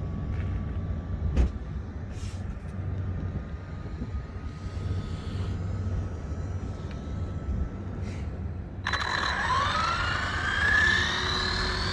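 Low outdoor rumble with a single click, then about nine seconds in an RC car's brushless motor (a Traxxas VXL 3500kV in an Arrma Infraction Mega 3S) starts whining, rising in pitch as the car accelerates.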